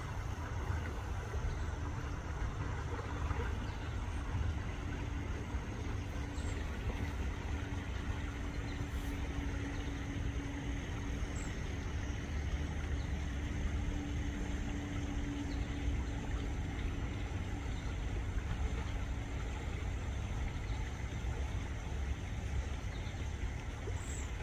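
Steady low rumble of a distant motor, with a steady droning hum from about four seconds in until about nineteen seconds.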